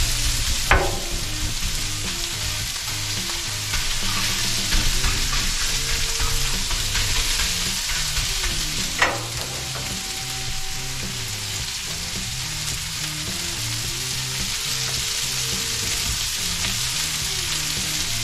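Beef frying on a hot Blackstone flat-top griddle, a steady loud sizzle as the meat is stirred and broken apart, with two sharp clinks, about a second in and about nine seconds in.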